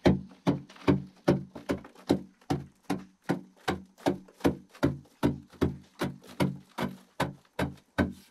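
A digging tool striking and chipping at a hard earthen wall in a steady rhythm, about two and a half blows a second.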